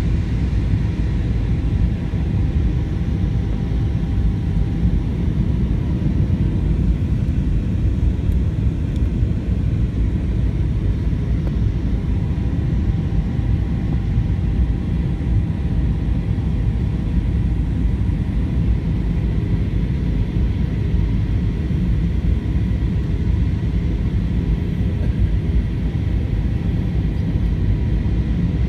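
Steady low rumble inside an Airbus A320-200 passenger cabin on approach, engine and airflow noise heard at a window seat over the wing, with faint steady whining tones above it.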